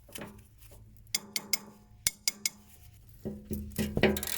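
Metal hand tools clinking sharply against the rusty engine drain plug of a Bobcat S130 skid steer, about six short clinks, then from about three seconds in a louder stretch of scraping and rubbing as the tool works at the stuck plug.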